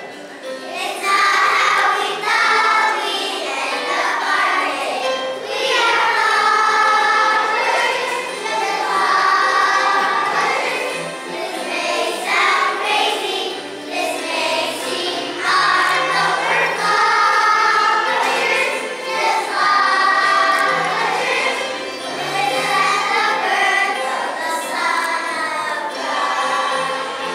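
A choir of young children, first- and second-graders, singing a Christmas song together in phrases.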